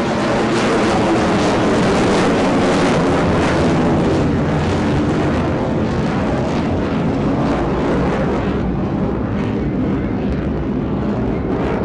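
Jet noise from a HAL Tejas light fighter's single General Electric F404 turbofan as it climbs away steeply: a loud, steady rushing rumble whose higher tones fade over the last few seconds as the jet recedes.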